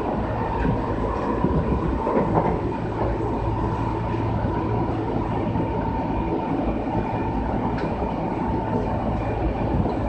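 Kintetsu 6413 series electric commuter train running along the line, heard from inside the car: a steady rumble of wheels on rail with a level whine and a few faint clicks.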